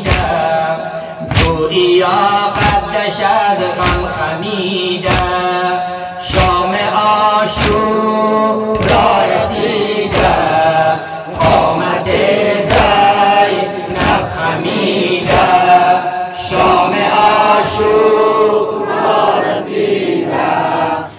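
A group of men and boys chanting a Shia Muharram lament (noha) in chorus, with rhythmic chest-beating (sineh-zani): hand slaps on the chest about once a second.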